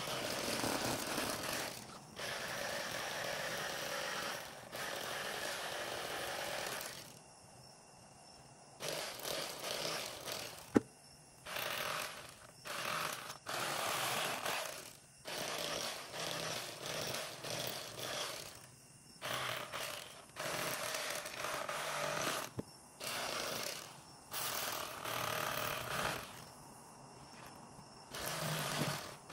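Electric fillet knife buzzing through fish, switched on and off again and again in bursts of one to a few seconds, with one sharp click about eleven seconds in.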